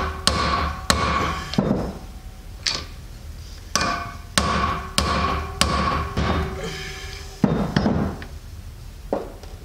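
Hammer blows on a steel drift, driving a new kingpin bushing into the kingpin bore of a Dana Spicer truck steer-axle knuckle. There are about a dozen sharp strikes at an uneven pace, each leaving a short metallic ring, with a pause before one last blow near the end.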